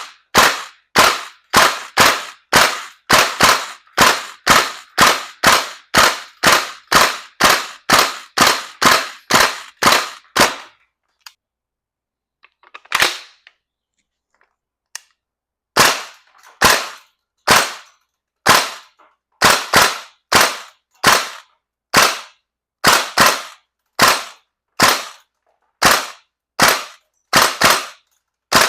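VFC KAC M110K1 gas blowback airsoft rifle firing a long string of rapid semi-automatic shots, about two a second. The firing pauses for about five seconds partway through, then resumes.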